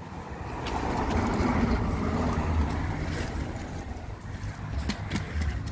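A car passing on the road, its tyre and engine noise swelling over the first couple of seconds and then fading. A few light clicks near the end.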